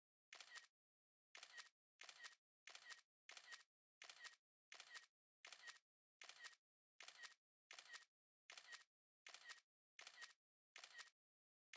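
iPhone camera shutter sound effect repeated over and over, about one shutter every 0.7 seconds with silence between. Each shutter is a quick double click.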